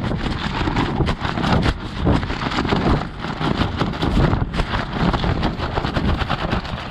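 Gusty storm wind flapping and buffeting a nylon rain tarp overhead and rumbling on the microphone, with many sharp taps of rain on the tarp.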